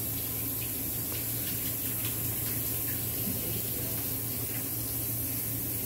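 Steady rushing hiss over a low, even hum, unchanging in level, with a few faint soft taps.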